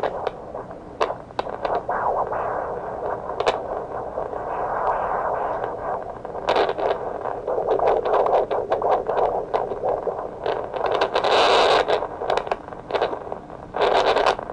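Fetal Doppler static: hiss in a narrow band with irregular scratchy crackles from the probe moving over the belly, while it is still searching and has not yet locked onto a clear fetal heartbeat.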